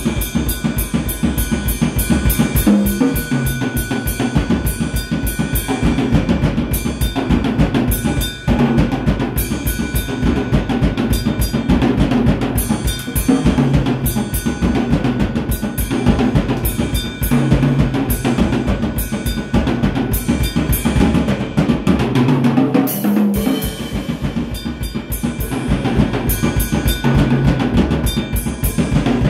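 Acoustic drum kit played fast and continuously: a dense stream of rapid bass-drum strokes under snare hits and cymbals. The bass drum drops out for about two seconds roughly three-quarters of the way through, then comes back in.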